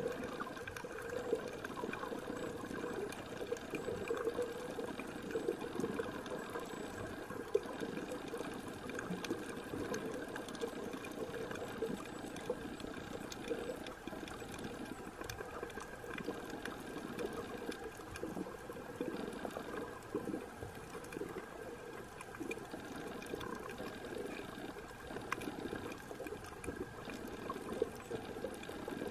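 Underwater sound picked up by a camera held below the surface while snorkelling: a steady, muffled rushing with faint scattered clicks and crackles.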